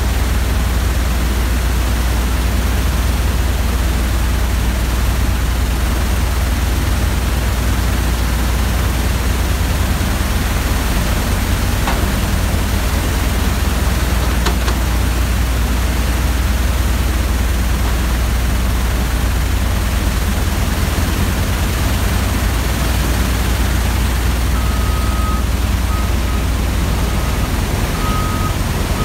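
Oilfield drilling-mud shale shaker running: a loud, steady machine noise with a low hum while mud and cuttings work across the vibrating screen. A faint, broken high tone comes in near the end.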